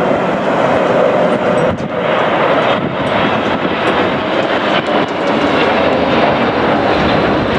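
Jet airliner on its landing approach passing close, its engines making a loud, steady rush of noise.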